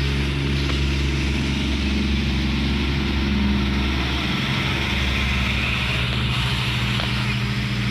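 Irish Rail 22000 class InterCity diesel railcar's underfloor diesel engines running steadily as the train pulls slowly out of the station, the low engine note shifting about halfway through.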